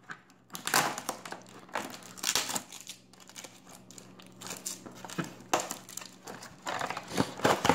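Cardboard packaging held together with packing tape being worked open by hand: irregular scraping, rustling and crinkling of cardboard and tape.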